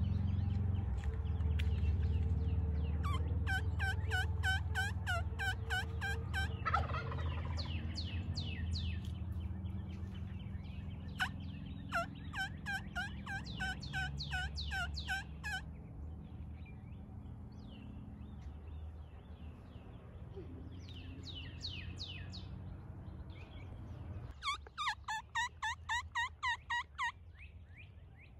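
Wild turkey yelping in three runs of evenly spaced yelps, about three or four a second, with small songbirds chirping in between.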